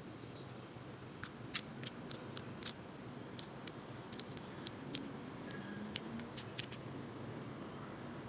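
Light, irregular clicks of a metal fork tapping against an aluminium foil pie tin as the pastry edge is crimped, over a faint steady hum.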